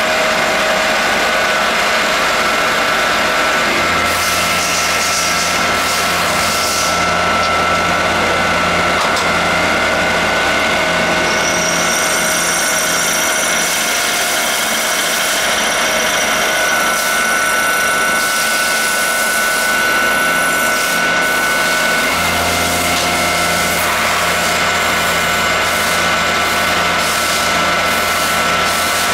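Automatic lathe running while it turns pickup screws and slugs under a flood of cutting oil: a steady mechanical whir with a few steady whining tones. A low hum comes and goes, and quick clicks come near the end.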